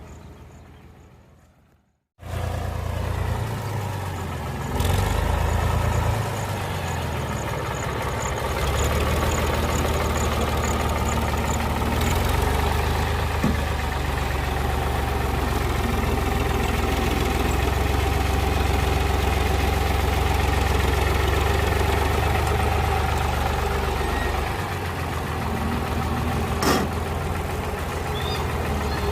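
Farmtrac 70 HP tractor's diesel engine running steadily while it pushes soil with a rear dozer blade. The engine gets louder about a third of the way in and eases off again near the end, with a couple of sharp clacks.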